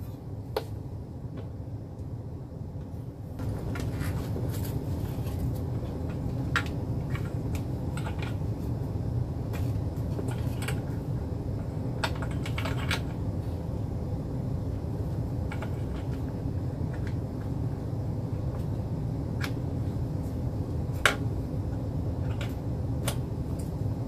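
Scattered sharp clicks and light plastic knocks of hands fitting a new steam tank and its fittings into a whole-home steam humidifier cabinet. Under them is a steady low hum that gets louder about three and a half seconds in.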